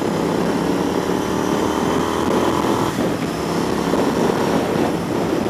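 Royal Enfield Interceptor 650's parallel-twin engine running steadily under way, over a rush of wind and road noise; the engine note shifts about three seconds in.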